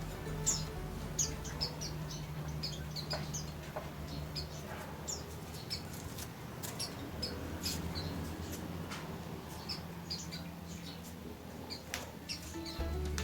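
Small caged songbird giving short, high chirps, scattered irregularly, with a few sharp clicks over a low steady hum.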